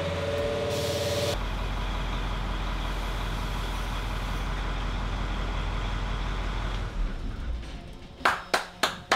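Heavy vehicle engine of the amphibious houseboat, a converted Rickel Big-A sprayer tractor, running steadily, with a short hiss about a second in. Near the end a few sharp claps come at about three a second.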